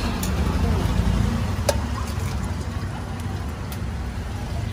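Steady low roar of the gas burner under a wok of heating oil, with a single sharp click a little under two seconds in.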